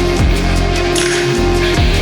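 Background electronic music: a steady held synth note over deep bass, with heavy kick-drum hits that drop in pitch, one near the start and one near the end.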